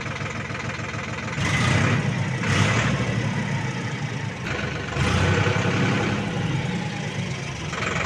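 Sonalika tractor's diesel engine running steadily, growing louder twice for a second or two.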